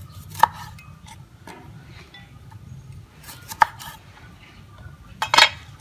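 Cleaver knocking on a wooden chopping board while cutting limes in half: a few sharp knocks, one near the start, one in the middle and a quick pair near the end.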